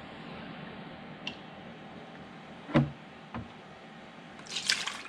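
Kitchen handling sounds while milk is measured with a cup and poured into a mixing bowl: a few light clicks and one louder knock about three seconds in, with a short rushing sound near the end.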